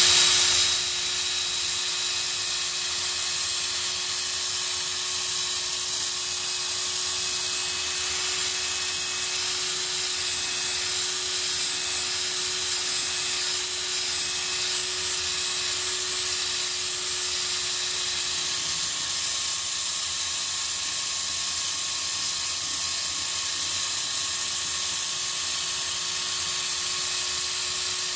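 Cordless drill spinning a wool buffing pad against a plastic guitar pickguard coated with rubbing compound: a steady motor whine with a hiss, settling to an even speed within the first second and holding there.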